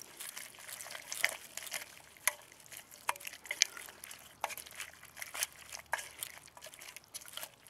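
Blue plastic spoon stirring vegetable chunks in liquid in a stainless steel camp pot, with irregular clicks and scrapes as it knocks against the pot.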